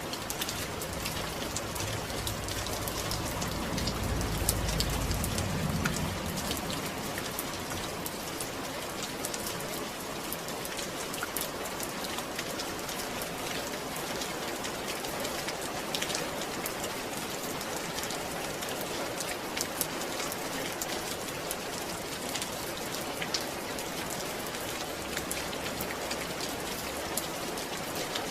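Steady rain falling, with many single drops ticking sharply close by. A low rumble swells briefly about four to six seconds in.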